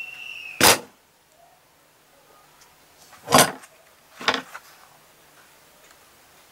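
Foam craft piece handled and pressed in the hands: a short high squeak at the start, then three brief rubbing knocks spread over the next few seconds.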